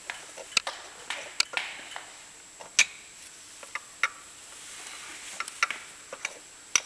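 Light metallic clicks and taps, irregular and spread out, as a Harley-Davidson Evolution engine's camshaft is worked back into the gearcase and its gear is brought into mesh with the timing marks lined up.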